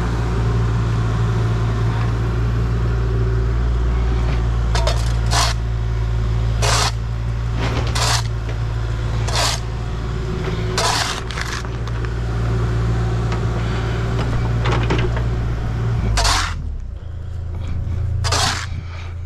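Steel shovel repeatedly scraping into soil and gravel, a short stroke every second or so, over the steady running of a heavy machine's diesel engine, which drops off near the end.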